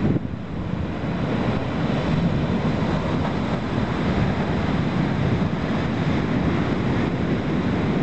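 Pacific Ocean surf breaking and foaming over a rocky shore: a continuous rush of water, steady in loudness.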